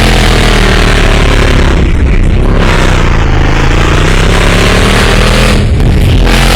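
Vehicle engine running loud and close under road noise, its pitch sagging and climbing again as it slows and speeds up.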